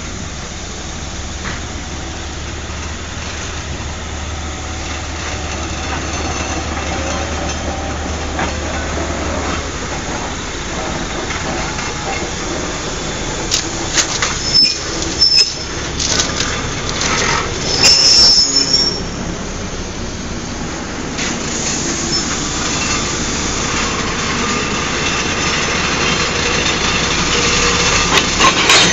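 Small diesel switcher locomotive running as it moves slowly along the track, with metallic clanks and brief high wheel squeal around the middle. A sharp clank near the end as its coupler meets the parked locomotive's coupler.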